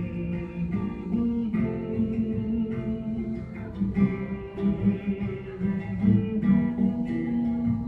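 Solo acoustic guitar playing strummed and picked chords, changing every second or two.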